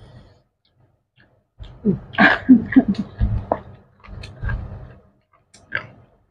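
A person's wordless vocal sounds while eating: short murmurs and throat-clearing noises, loudest about two to three and a half seconds in.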